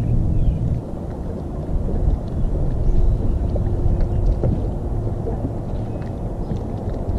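Low, steady rumble of wind buffeting the camera microphone, with a faint steady tone for a second or so around the middle.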